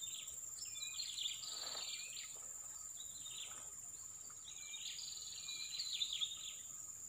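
Songbirds singing in short chirping phrases, repeated several times, over a steady high-pitched insect drone.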